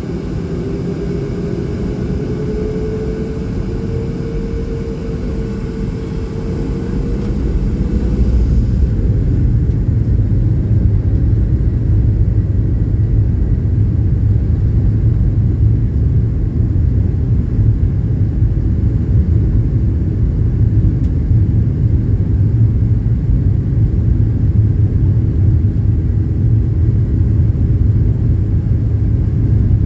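Airplane engines powering up for takeoff: a whine rising in pitch over the first several seconds, then, about eight seconds in, a louder steady low rumble as the takeoff run gets under way.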